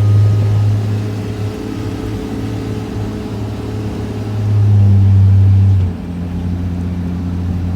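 Engine of a tour vehicle running at a steady pitch, a low hum that swells louder for about the first second and again from about four and a half to six seconds in.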